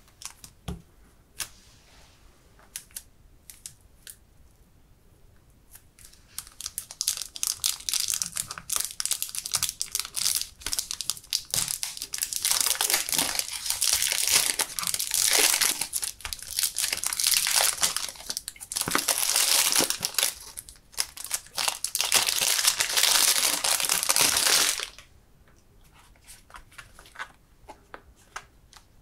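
Cellophane shrink-wrap on a perfume box crinkling and tearing as it is peeled off by hand. A few faint clicks come first, then loud, dense crinkling for nearly twenty seconds that stops abruptly, followed by a few faint clicks of handling the bare box.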